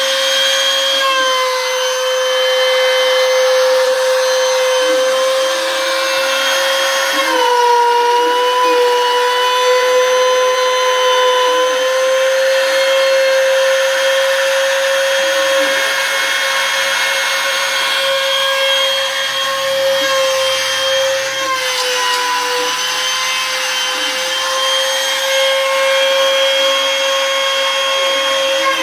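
CNC router spindle milling a wood panel, a steady high-pitched whine with a cutting hiss over it. It dips slightly in pitch twice, about seven seconds in and again after about twenty-two seconds.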